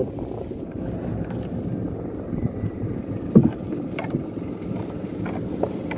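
Fishing net being hauled by hand into a small wooden outrigger boat, over a steady wash of water and wind around the hull, with a few short knocks.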